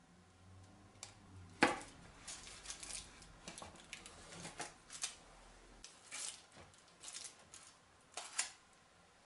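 Large kitchen knife cutting through a chilled cream cake and the aluminium foil wrapped around its base: a run of crinkles, scrapes and sharp clicks, loudest about one and a half seconds in and again near the end.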